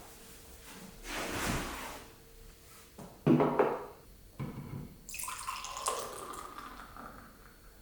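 Kitchen water running and splashing in a sink, with a sharp knock and a smaller one from dishes or a pot being handled.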